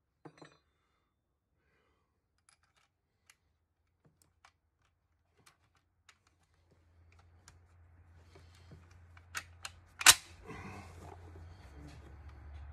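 Light scattered clicks and metal ticks of an M1 Garand's action being handled, then one loud, sharp crack with a short echo about ten seconds in, the loudest sound here.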